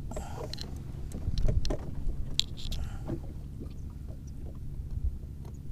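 Steady low rumble of a small wooden boat on open water, with scattered light clicks and rustles from hands handling a fishing hook and bait.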